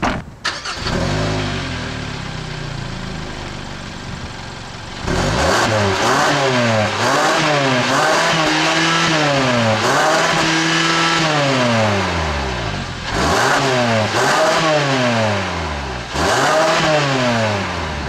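2011 Hyundai Sonata's 2.4-litre GDI direct-injection four-cylinder engine, heard at its exhaust tip, starting about half a second in and settling to idle. From about five seconds in it is revved in a series of quick rises and falls, with one rev held longer near the middle.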